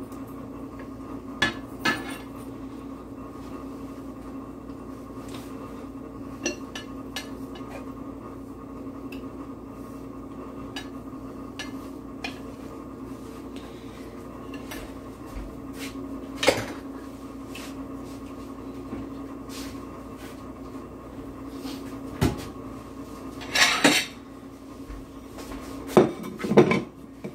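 Metal utensils and a plate clinking and knocking against a cast-iron skillet as chicken pieces are put back into the pan. The clinks are scattered, with a louder knock about midway and a cluster near the end, over a steady low hum.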